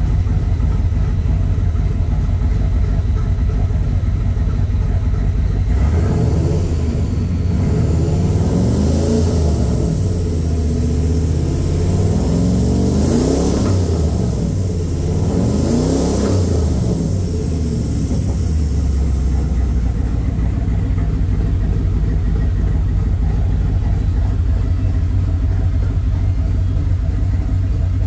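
Vehicle engine fitted with a new intake, idling steadily, then revved several times with the pitch rising and falling between about six and nineteen seconds in, before settling back to idle.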